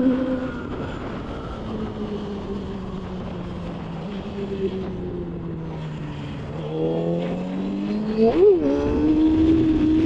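Yamaha YZF-R6 inline-four engine heard from the rider's seat, its pitch falling slowly for about six seconds as the bike eases off. It then climbs under throttle, with a brief sharp rev blip near the end, and settles at a steady higher pitch. Wind rushing over the microphone runs underneath throughout.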